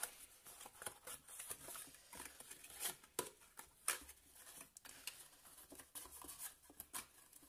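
Paper being folded and handled: faint rustling with scattered light clicks and crackles, the sharpest about three and four seconds in.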